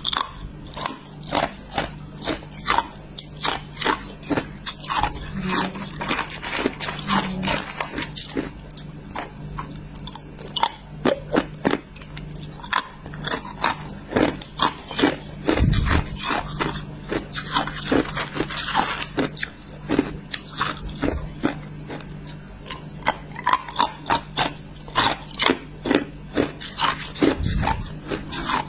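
A person chewing hard clear ice close to the microphone: an irregular run of sharp crunches and cracks, a few a second, as the ice breaks between the teeth.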